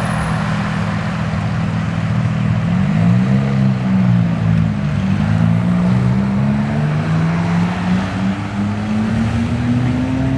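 Car engine and exhaust running at low revs. The pitch shifts about three seconds in, then climbs slowly as the car pulls away.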